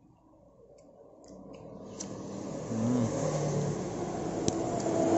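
A low rumbling, vehicle-like noise swells up over the first three seconds and then holds steady. Over it come a few faint clicks and rubs as a silicone rubber sleeve is worked off a power bank.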